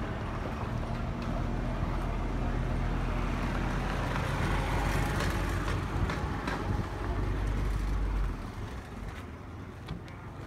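A motor vehicle's engine running close by, a steady low hum that grows louder toward the middle and fades out about eight seconds in.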